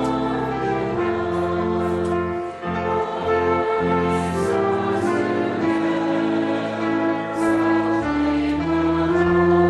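Sacred choral music with instrumental accompaniment, in slow held chords over a moving bass line.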